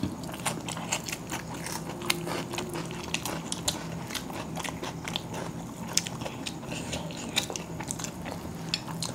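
Two people eating chicken biryani by hand: chewing with irregular sharp clicks and smacks, and fingers working the rice on glass plates. A faint low steady hum runs underneath.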